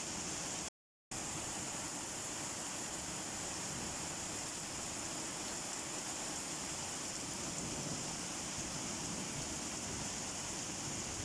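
Steady rain falling, an even hiss with no single drops standing out. It cuts out completely for about half a second near the start, then resumes at the same level.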